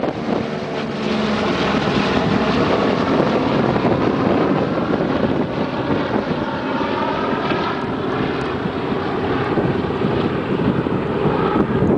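Boeing B-17 Flying Fortress's four Wright R-1820 Cyclone radial engines running at takeoff power as the bomber climbs out overhead and away, a loud, steady propeller drone whose pitch shifts as it passes.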